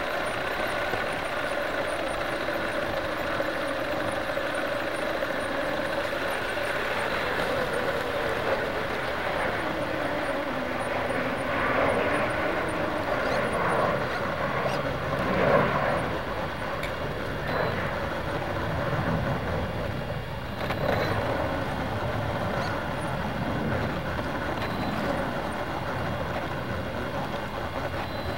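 RC car's motor running, its pitch rising and falling as the car speeds up and slows down, with a brief louder surge about halfway through.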